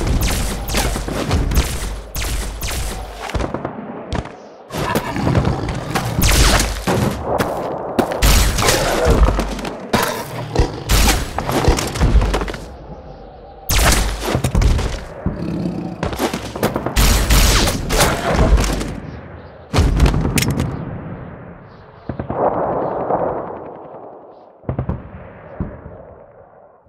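Gunfire sound effects: bursts of automatic fire and single shots in quick succession with short gaps, dying away near the end.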